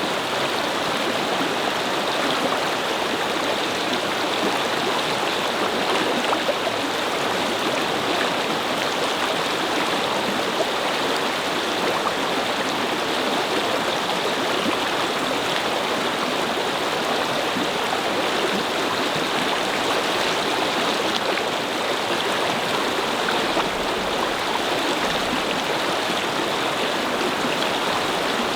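A brook flowing over stones, a steady babbling rush of water.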